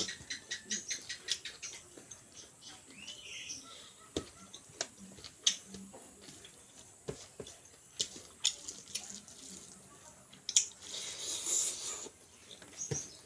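Close mouth sounds of someone eating chicken and rice: irregular wet smacks and chewing clicks, with a brief hissing rustle about eleven seconds in.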